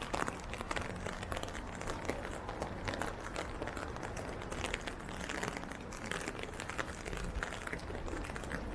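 Steady rain pattering on an umbrella held just above the microphone: a dense, irregular stream of small drop ticks over a soft hiss.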